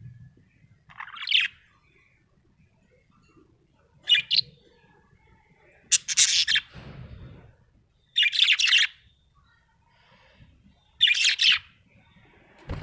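Budgerigar chirping in five short bursts of rapid, high-pitched chatter, a few seconds apart.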